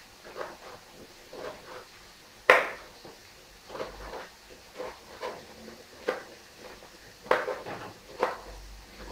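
Knife cutting roasted green peppers on a plastic cutting board: irregular knocks of the blade against the board, about one or two a second, the sharpest about two and a half seconds in.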